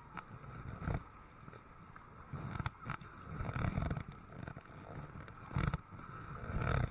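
Kayak being paddled: irregular paddle strokes and water sloshing, with a few sharp knocks.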